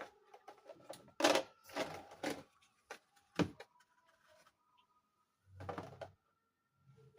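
Small plastic toy pieces being handled: a few short rustles and clicks, with a sharp click about three and a half seconds in.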